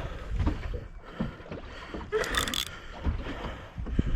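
Water sloshing and slapping against the side of a small fishing boat, with low rumbling wind on the microphone and a short splash about two seconds in as a big snapper is brought to the surface at the boat.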